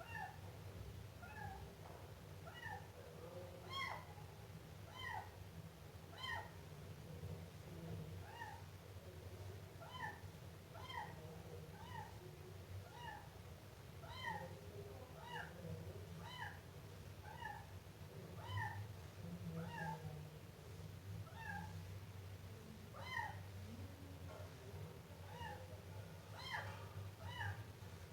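Siamese kitten meowing over and over, short high-pitched meows about one a second. A steady low hum runs underneath.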